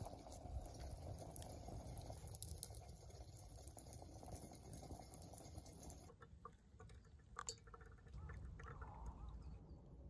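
Faint, steady simmer of water heating in an enamel kettle over a wood campfire, then about six seconds in the wood fire crackling, with a few sharp pops.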